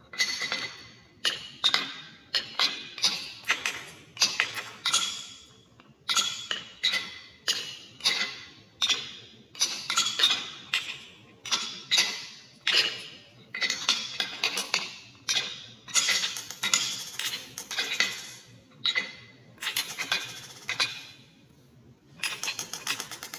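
Glass marbles rolling down a wooden HABA slope marble run, with a dense run of sharp clacks as they drop onto the wooden chutes and clink against the marbles piled in the cup at the end.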